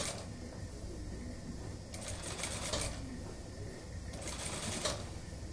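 Industrial lockstitch sewing machine setting in a suit sleeve, its motor humming steadily, with short runs of stitching about two seconds in and again just past four seconds.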